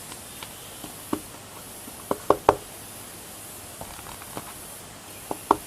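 Rubber stamp knocked down onto paper on a tabletop: short sharp knocks, one about a second in, a quick cluster of three around two seconds, and two more near the end.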